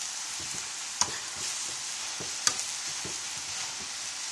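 Chicken, green beans and peppers sizzling in a frying pan as a spatula stirs and scrapes through them, with two sharp clicks about a second and two and a half seconds in.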